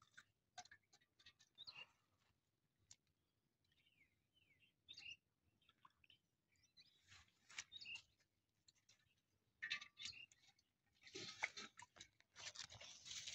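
Faint, scattered small splashes and wet crackles of a hand reaching into shallow water in a mesh net to pick out small shrimp, with a denser run of splashing about eleven seconds in.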